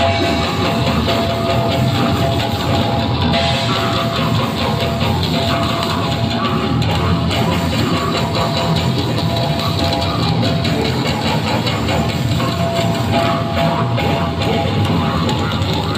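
Live heavy metal band playing loud and without a break: distorted electric guitar, bass guitar and drum kit, with a vocalist on the microphone.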